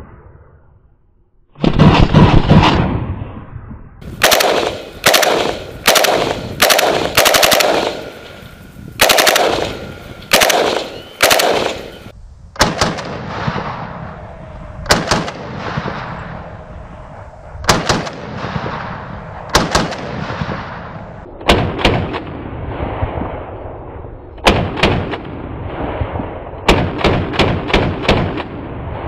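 VULKAN-M bullpup Kalashnikov rifle in 5.45 firing: short rapid bursts in the first half, then single shots and pairs about a second or two apart, each report trailing a short echo.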